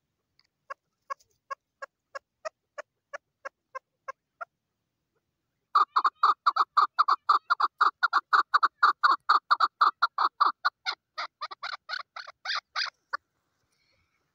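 Chukar partridge calling: a string of short clucking notes, about three a second. After a brief pause comes a louder, faster run of 'chuck' notes, about five a second, lasting some seven seconds before it stops abruptly.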